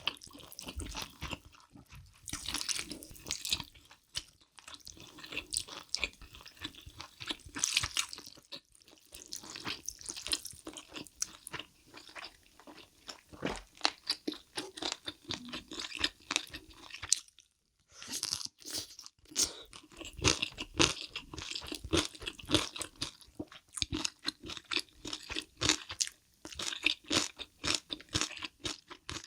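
Close-miked chewing, with many crisp crunches of food between the teeth, going on steadily and breaking off briefly a little past halfway.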